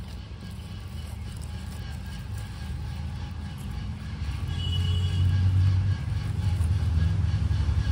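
A low, steady rumble that swells about four seconds in and holds at that level.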